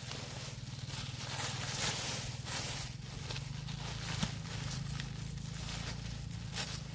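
Dry thatch grass rustling and crackling as it is handled, in irregular short strokes, over a low steady hum.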